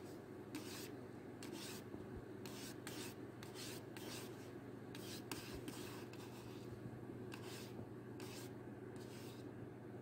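A kitten's paw rubbing and swiping against a computer monitor's screen: many short, irregular scuffs, over a steady low hum.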